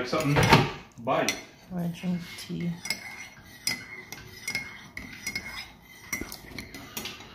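Cutlery and dishes clinking and clattering: a string of sharp clicks and knocks, several with a brief ringing tone after them.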